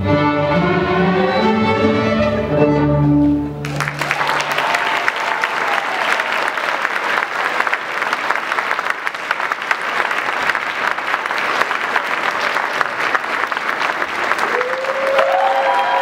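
A school string orchestra of cellos, double basses and violins plays its last sustained chord, which stops about four seconds in; audience applause follows for the rest.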